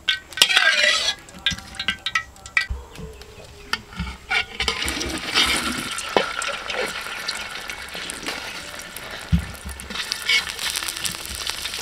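Metal spatula clinks against the wok, then from about four seconds in a steady sizzle of chive rice cakes shallow-frying in hot oil in a metal wok, louder near the end as a second cake goes in.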